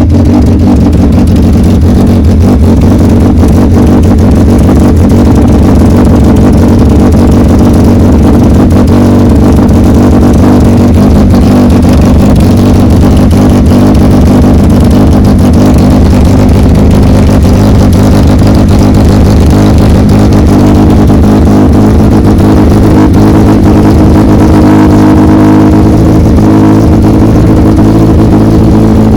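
1997 Honda Civic's four-cylinder engine running loud and rough on its first start after a cylinder head installation, with an exhaust leak.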